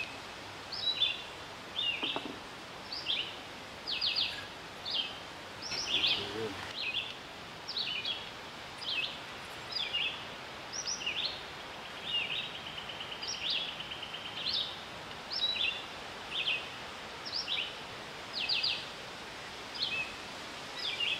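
A songbird singing over and over: short high chirps and slurred whistled notes every second or so, with a few quick trills, one held for nearly two seconds near the middle, over a steady outdoor background hiss.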